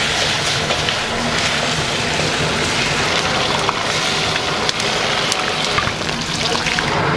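Crab frying hard in a very hot wok over a high-flame gas burner: a loud, continuous sizzle and hiss with the burner's roar under it, and a few sharp clicks of the metal ladle against the wok.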